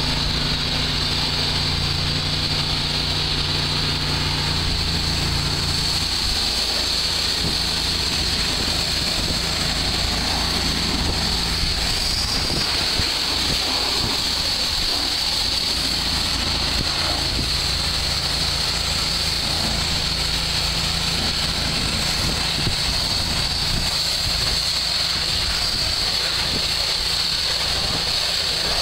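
Mobile hot water pressure washer, a two-gun 3000 PSI unit, running steadily while two wands blast water onto pavement: a continuous high spray hiss over the machine's low drone. The drone's steady note drops away about six seconds in and comes back later, typical of the machine adjusting pressure and flow as the operators work the triggers.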